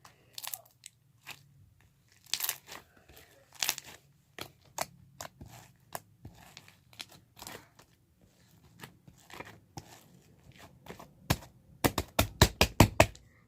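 Slime being stretched and squished by hand, making irregular wet clicks and pops, with a quick run of louder pops near the end.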